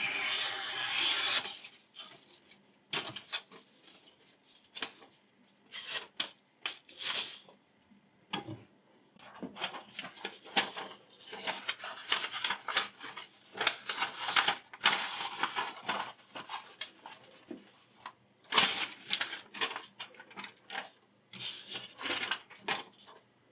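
Paper being cut by a freshly sharpened ZDP189-steel chef's knife in a paper-slicing sharpness test: a long hissing slice at the start, then short crisp rustles and longer stretches of paper rubbing and being cut against the edge.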